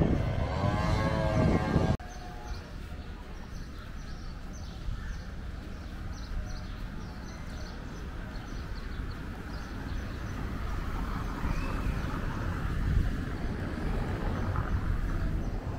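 Street ambience: a low, steady rumble of traffic with faint footsteps ticking at a walking pace. A person's voice is heard over the first two seconds and cuts off abruptly.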